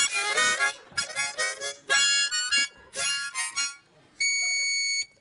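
Harmonica played in short chordal phrases, each about a second long with brief gaps between, then a single high note held for about a second near the end.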